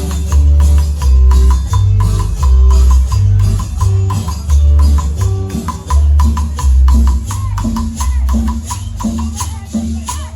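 Music with loud, heavy bass notes under a quick, steady percussion beat.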